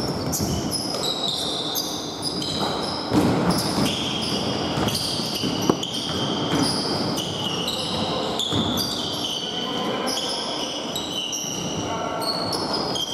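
Basketball play on a hardwood gym floor: sneakers squeaking again and again in short high-pitched chirps, the ball bouncing with a few sharp thuds, and players calling out.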